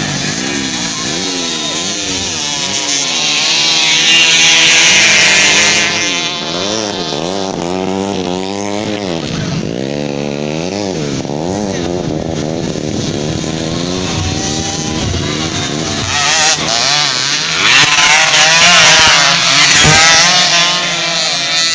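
Several dirt-bike engines revving on a sand track, their pitch rising and falling over and over as the riders open and close the throttle. The engines get louder as bikes pass close, about four seconds in and again near the end.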